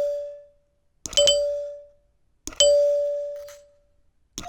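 Heath Zenith two-note electric door chime, its solenoid plunger striking a chime bar about every second and a half. Each strike is a sharp click followed by one ringing note that dies away within about a second and a half. Right at the end a second, slightly higher bar rings along with it.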